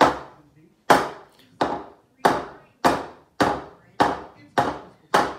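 Nine sharp knocks in a steady rhythm, about one every 0.6 seconds, each ringing briefly before dying away.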